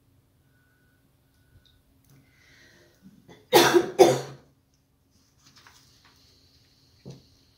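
A person coughing twice in quick succession, loud and close to the microphone.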